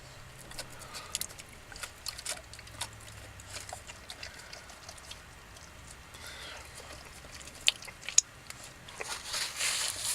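Dog chewing and gnawing on a cooked pork bone: scattered small clicks and crunches, getting louder near the end.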